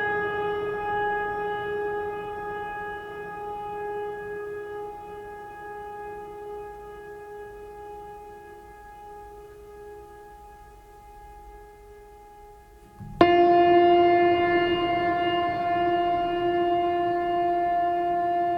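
Ambient drone music: a long held note with a rich, horn-like tone fades slowly, then a lower, louder held note comes in suddenly about thirteen seconds in.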